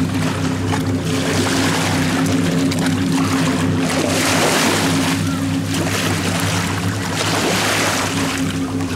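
Small lake waves washing in and out over sand in shallow water, surging and easing every few seconds, over a steady low droning hum.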